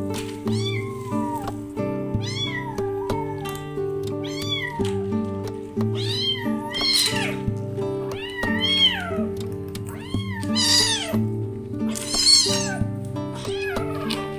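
Kitten meowing repeatedly: about seven high, rising-and-falling meows roughly two seconds apart, over background music.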